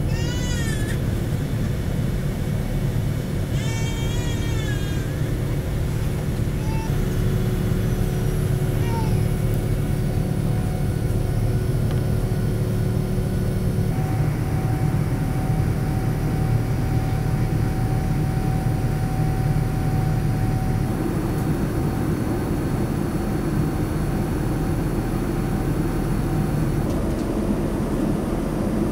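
Steady cabin noise inside a Boeing 787-10 airliner: an even low rumble of engines and air with faint steady whines, one of which comes in about halfway and drops out a few seconds later. Two short, high, wavering squeals in the first few seconds.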